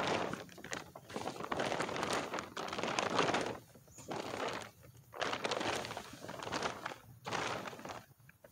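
Car cover and tarp rustling as they are dragged off a car in a series of pulls, each about a second long with short pauses between. The rustling stops shortly before the end.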